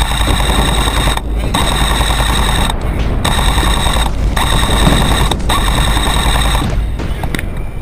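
Airsoft electric gun firing full-auto in about five bursts of roughly a second each, separated by short gaps. It makes a rapid, buzzing rattle.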